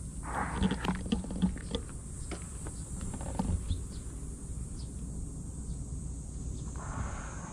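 Steady high insect chirring, with short bursts of rustling scuffles and small knocks about half a second in and again near the end, as kittens tussle in play.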